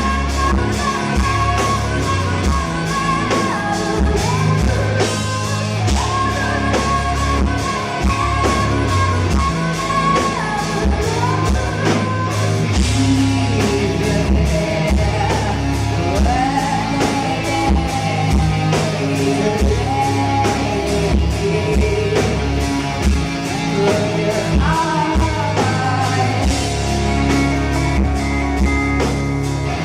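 Live folk-metal band playing loudly: a female lead vocal sings a wavering melody over electric guitar and a steady drum beat.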